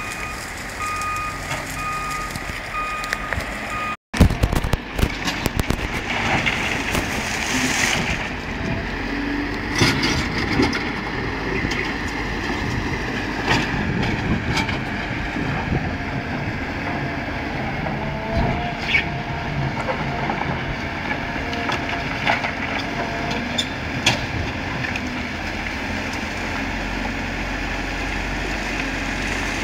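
A reversing alarm beeps for the first few seconds, then cuts off abruptly. After that, the diesel engines of earth-moving machinery (a hydraulic excavator, a dump truck and a backhoe loader) run steadily. Scattered clanks and knocks come from the buckets and rock.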